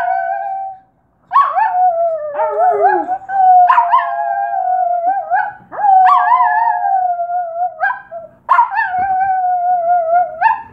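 Small dog howling: four long howls, each about two seconds, each starting with a quick upward yelp and then held with a wavering pitch.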